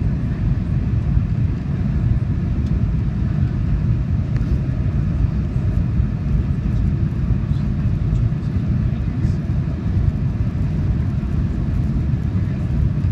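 Steady low rumble inside the cabin of a Boeing 737-900ER descending on approach: airflow and its CFM56-7B jet engines heard from a window seat over the wing.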